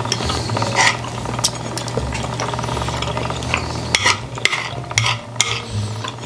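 Knives and forks clinking and scraping on dinner plates during a meal: a scatter of sharp clicks over a steady low hum.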